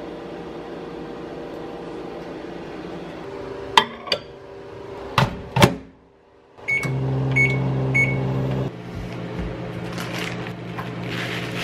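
Microwave oven being set going: a few knocks and clicks, then three short high beeps as its buttons are pressed, and a steady low running hum that cuts off about two seconds later.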